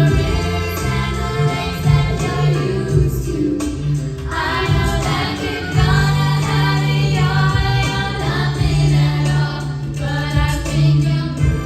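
Music: a song with several singing voices over a heavy bass line, the voices coming in strongly about four seconds in.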